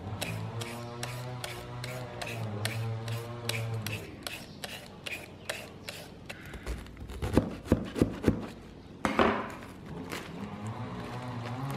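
A julienne peeler scraping shreds off a raw carrot in regular strokes, about three a second, over the steady hum of an engine running outside where trees are being cut. Past the middle come a few heavy thumps.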